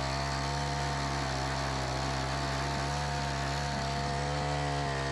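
Troy-Bilt edger's four-stroke small engine running at a steady speed, an even mechanical drone.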